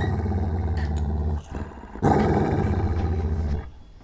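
Labrador dog giving two long, low warning growls at a baby crawling up to its face, each lasting about a second and a half.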